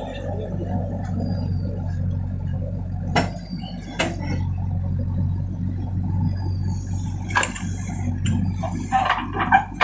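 JCB 3DX backhoe loader's diesel engine running with a steady low drone, broken by a few sharp knocks, more of them close together near the end.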